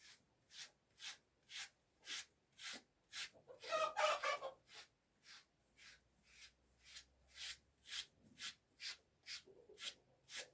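Rhythmic scraping strokes, about two a second, with a louder, briefly pitched sound near four seconds in.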